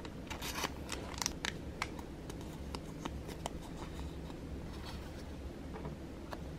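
Fingers handling a crinkly clear cellophane bag and a tiny paper wrapper: a quick run of small crackles and rustles in the first two seconds, then fainter ones around five seconds in, over a low steady hum.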